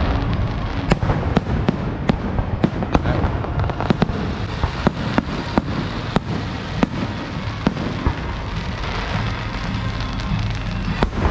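Fireworks going off: a run of sharp pops and crackles at irregular spacing, a few a second, over a steady rumble. The pops thin out after about eight seconds, with one more near the end.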